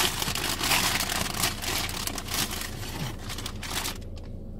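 Paper bag rustling and crinkling in quick irregular bursts as an oliebol is handled in it, stopping about four seconds in.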